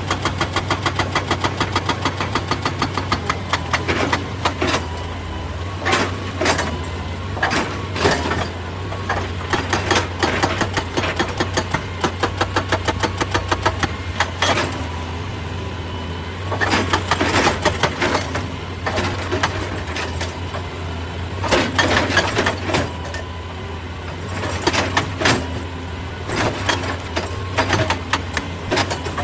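Excavator's diesel engine running steadily under load, with stretches of rapid, regular hammering several times a second and scattered heavy knocks of rock and metal.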